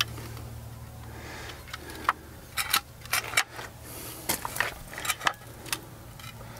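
Irregular light clicks and taps as a spirit level and a hose-reel mounting plate are shifted and set against a wall, over a steady low hum.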